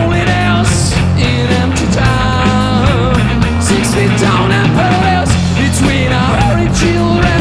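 Rock band playing live: a male voice singing over distorted electric guitars, electric bass and a drum kit with steady cymbal and snare hits.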